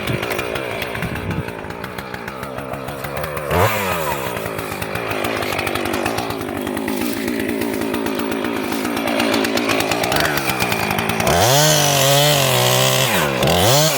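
Husqvarna 445 two-stroke chainsaw running and cutting into an ash trunk to make the felling notch, its engine pitch held lower under load. Near the end the pitch swings up and down as the throttle is worked.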